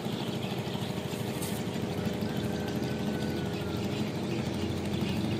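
A small engine running steadily with a fast, even low pulse.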